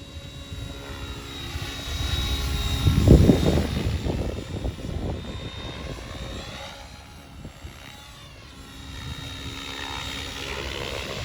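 Small electric RC helicopter (OXY Oxy 5) in flight: the whine of the motor and main rotor swells and fades and glides up and down in pitch as it manoeuvres and passes by, loudest about three seconds in.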